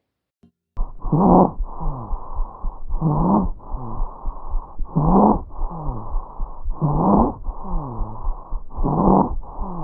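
Auscultation recording of stridor: a harsh, pitched breath noise that swells five times, about two seconds apart, with softer breath noise between. It is the sign of a partial obstruction of the larynx or trachea.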